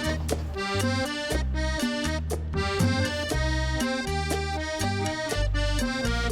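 Background music: accordion-led instrumental passage over a bass line and a steady beat, without singing.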